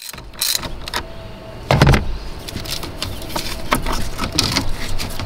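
Hands and a socket tool working the negative cable off a car's 12 V battery terminal: scattered clicks and knocks of metal and plastic, with one loud thump about two seconds in.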